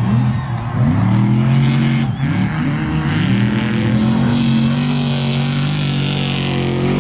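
Off-road racing engines of a Class 1 buggy and a trophy truck running hard on a dirt course. The pitch drops and climbs again several times as the throttle lifts and gears change. A hiss builds as the trophy truck passes close near the end.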